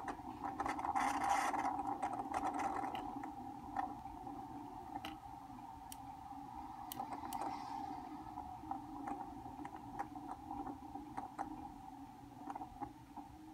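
A steady hum with small clicks scattered through it, and a brief rustle about a second in.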